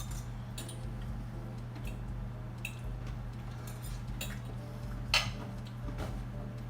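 Cutlery tapping and clinking against a plate now and then while eating, about six short clicks, the loudest a little past five seconds in.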